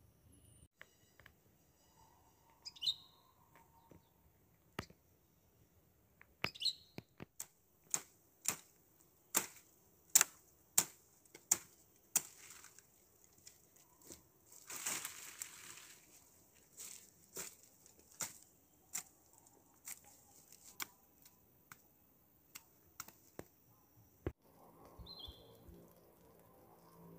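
A long run of sharp knocks or taps, roughly one every two-thirds of a second, with a short rustle about halfway through. A few brief chirps are heard near the start and near the end.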